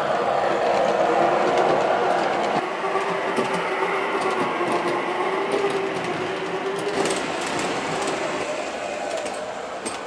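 O scale model elevated trains running on the layout track: a steady motor whine over a rolling rumble, with scattered sharp clicks from the wheels on the rails.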